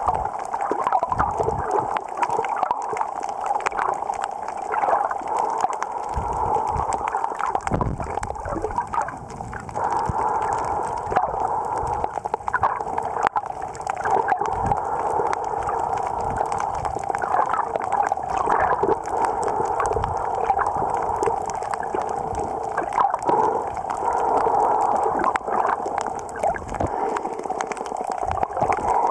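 Water sounds heard with the microphone under the surface: a continuous muffled gurgling wash with many faint scattered clicks and occasional low thumps.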